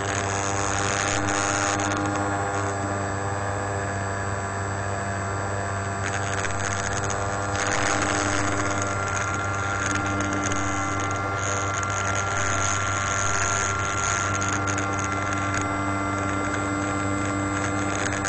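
Electric motor and propeller of a small FPV radio-controlled plane running at a steady cruise throttle, heard from on board as a steady hum of several stacked tones with a hiss over it.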